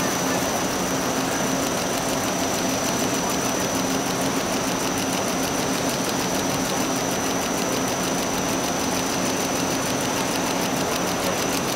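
SimSun Apollo-80FCV folder gluer running: a steady mechanical hum with a high, constant whine and a fast, even ticking over it.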